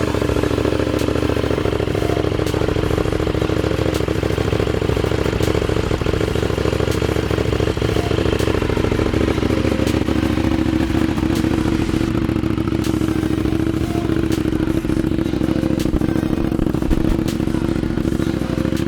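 KTM 790 Duke's parallel-twin engine idling steadily through an Arrow dual aftermarket exhaust with cat delete and headers, dB killers installed, just after starting.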